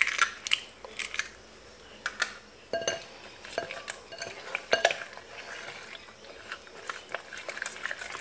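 A spatula stirring an egg into creamed butter and sugar in a bowl, scraping and knocking against the bowl's sides in irregular strokes.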